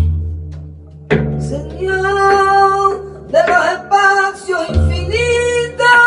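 Male flamenco singer holding long, ornamented wordless notes over plucked oud, with three deep strikes on a large frame drum: one at the start, one about a second in, one near five seconds.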